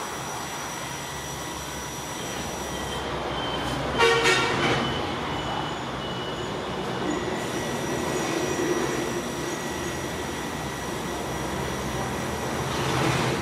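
Steady background noise with a short, louder pitched toot about four seconds in.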